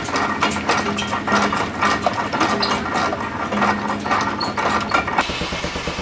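Steam traction engine running, with irregular mechanical clicking and knocking over a low hum. About five seconds in, music with a steady drum beat cuts in abruptly.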